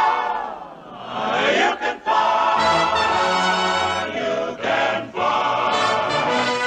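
Choir and orchestra music with a falling sweep in the first second, then full sustained choral chords over held low notes.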